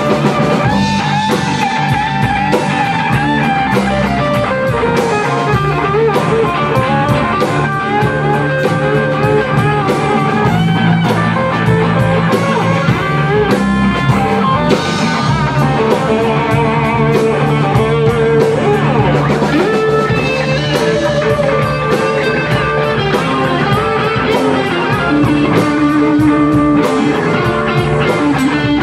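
Rock band playing live: two electric guitars, a bass guitar and a Tama drum kit, with steady drum hits under held and bending guitar notes.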